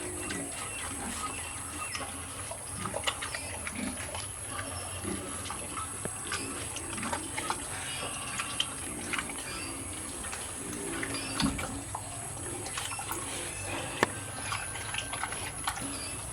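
Pigs in a pen grunting in short low calls about once a second, with scattered clicks and knocks, over a steady high whine.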